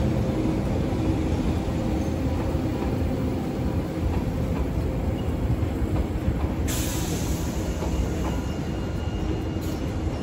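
Hiroden 3900-series articulated tram pulling away and rolling off over the station tracks: a steady low rumble of wheels and running gear, with a sudden high hiss about two-thirds of the way through.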